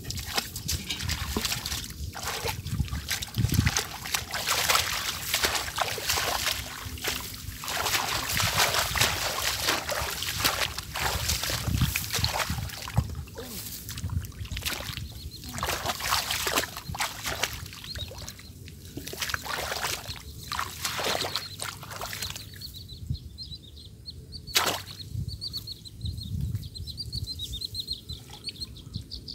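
Water splashing and sloshing in quick, irregular bursts, as from hands or bodies moving through shallow water while catching fish. After about twenty-two seconds it quiets, leaving a fast, high repeated chirping and a single sharp click.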